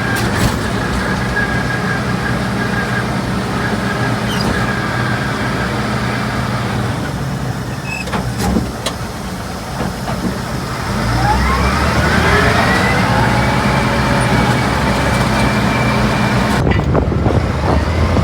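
Caterpillar D7 bulldozer's diesel engine running steadily, then revving up with a rising whine about eleven seconds in and staying louder.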